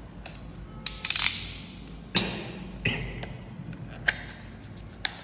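Cardboard packaging handled and pulled open: a few sharp snaps and clicks of card, the loudest about two seconds in, followed by a short scraping slide of card against card.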